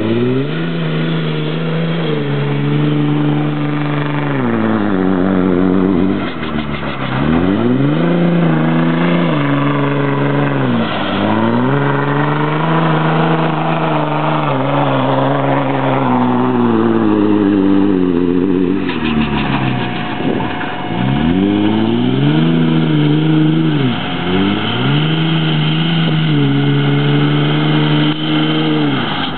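2005 Dodge Ram 2500's 5.9-litre Cummins turbo-diesel, through a 5-inch turbo-back exhaust, revving hard and held at high revs, with the revs dropping sharply and climbing again about five times. The turbo surges, which the uploader calls bad turbo surge.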